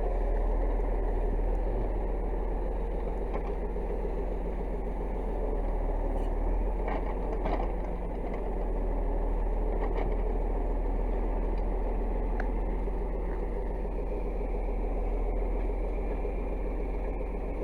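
DT-75 crawler tractor's diesel engine running steadily at a low, even speed.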